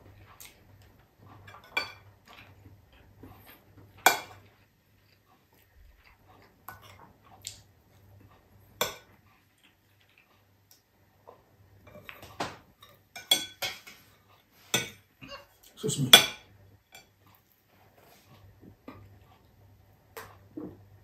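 A metal spoon and dishes clinking and knocking now and then as a meal is eaten, with the loudest clatter about sixteen seconds in.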